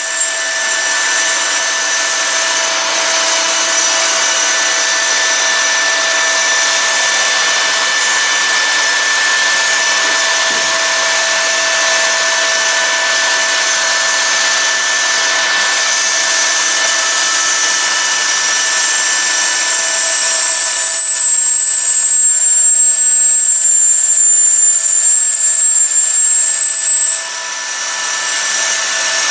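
Router spindle of a Pro Vario vertical CNC milling machine running and cutting a plywood sheet, with dust extraction on the cutter: a steady high whine over a hiss. About two-thirds of the way through, a higher whistle rises and runs louder for several seconds, then the sound dips briefly near the end.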